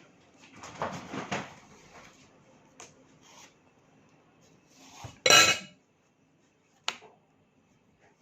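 Kitchen knife and dishware sounds while a ripe mango is being peeled: light scraping about a second in, a loud clatter of a utensil against a dish just after five seconds, and a short sharp clink near seven seconds.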